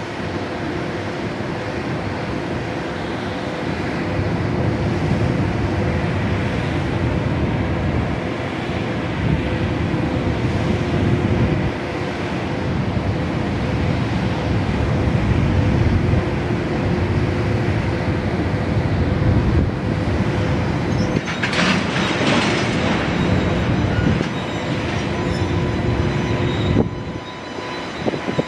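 JR Freight EH500 electric locomotive heading a container freight train, running with a steady hum and a few held tones as it stands and then starts to move off. A burst of hissing comes about two-thirds of the way through.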